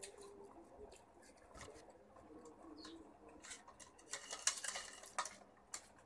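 Metal spoon stirring a fruit drink in a plastic pitcher: a quick run of light clinks and rattles about four seconds in, after a few faint scattered clicks.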